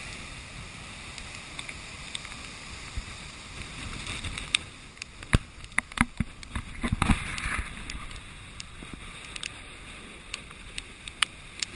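Heavy hurricane surf rushing and breaking over seawall rocks, with wind buffeting the camera. About four to eight seconds in the rush swells and a cluster of sharp clicks and knocks hits the camera, with scattered single clicks elsewhere.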